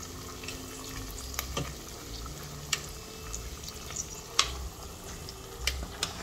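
Sliced onions frying in oil in a steel pot, a steady sizzle, with a few sharp taps and clicks of cooking utensils against the pot as the food is stirred.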